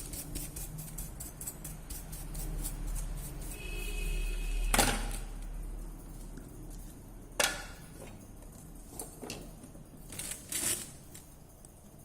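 Hands working on a smartphone with small tools: a quick run of small clicks, then a sharp knock about five seconds in and another about seven and a half seconds in, followed by a few lighter clicks.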